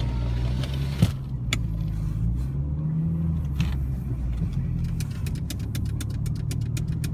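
Car engine running, its pitch rising a little around three seconds in as it pulls away, with a single knock about a second in and a run of faint clicks in the second half.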